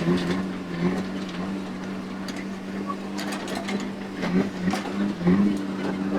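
JCB digger's engine running at a steady pitch, dipping briefly twice near the end, with scattered clicks and knocks.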